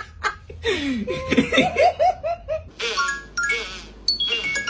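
A person laughing in quick repeated bursts, then a short chiming musical jingle with stepping notes near the end.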